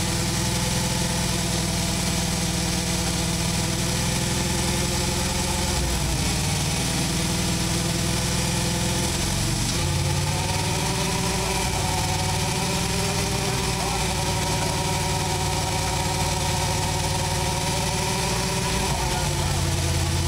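Harley-Davidson motorcycle's V-twin engine running steadily. Its speed rises about ten seconds in and settles back down shortly before the end.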